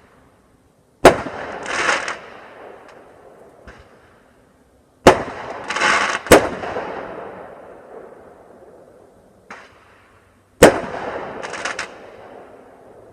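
Fireworks going off: four sharp bangs, the second and third close together about a second apart. Three of them are followed half a second later by a burst of crackling, and each trails off in a long echoing rumble.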